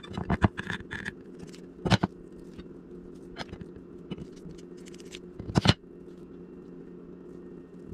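Kitchen scissors snipping raw bacon strips, with a handful of sharp clicks of the blades and plate, over a steady low hum.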